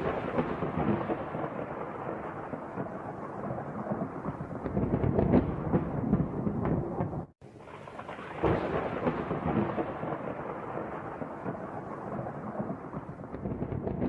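Thunder sound effect: a sudden crack followed by a long rumble, heard twice, the second starting about eight and a half seconds in after a brief break.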